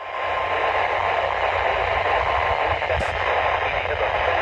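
Weather radio receiver hissing with static on a weak signal, a faint steady tone just audible under the hiss. One sharp click about three seconds in.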